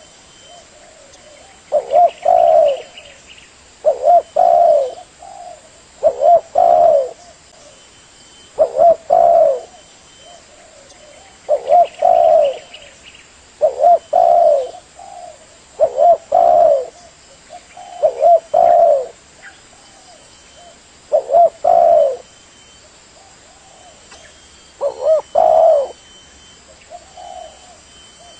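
Spotted dove (tekukur) cooing: a short phrase of quick notes ending in a longer coo, repeated every two to three seconds.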